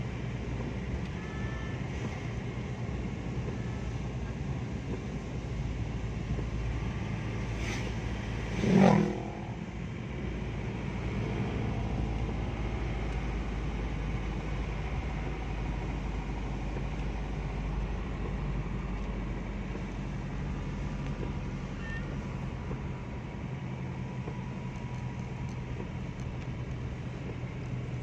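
Car cabin noise while driving on a wet road: the engine and tyres make a steady low hum. About nine seconds in comes one short, loud, pitched sound.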